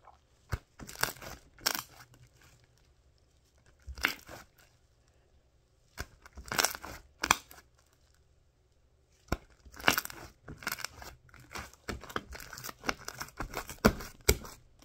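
Hands squishing, stretching and pulling apart a sticky shaving-cream slime, giving short wet crackling and tearing pops in bursts with brief pauses between them.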